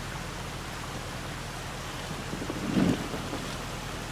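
Range Rover Sport creeping slowly backwards on loose gravel: a steady low rumble with an even noisy wash over it, swelling briefly about three quarters of the way through.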